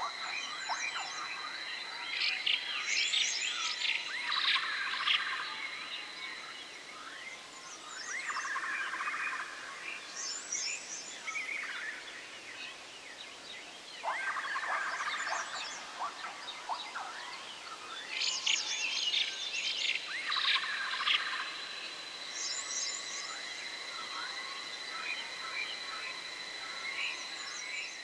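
Forest wildlife ambience: clusters of high chirps and trills recur every few seconds over a faint steady hiss. A thin steady high tone sounds at the start, fades out after about six seconds, and returns for the last third.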